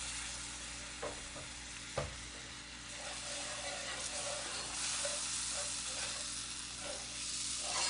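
Milk being added a little at a time to diced vegetables and a cooked flour roux in a hot cast-iron skillet, sizzling, with a wire whisk stirring and scraping against the pan. A couple of light knocks come about one and two seconds in, and the stirring gets busier after about three seconds.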